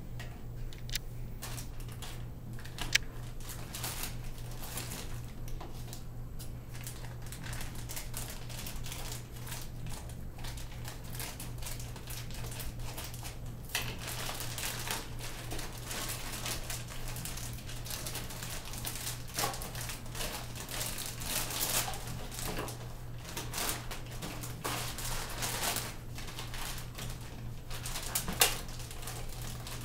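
Plastic and cardboard toy packaging being handled and opened: crinkling and rustling with many scattered clicks and taps, busier in the second half, over a steady low hum.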